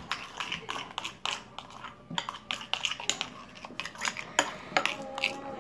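Spoon stirring glue and shaving foam in a bowl, clinking and scraping against the bowl in quick, irregular strokes.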